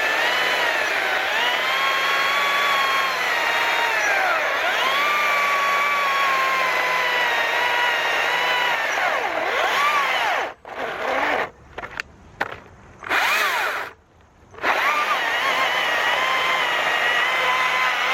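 STIHL battery-powered electric chainsaw cutting through a large log, its motor whine dipping in pitch as the chain loads up in the wood and recovering. About ten seconds in it stops and starts several times in quick succession, then runs steadily again.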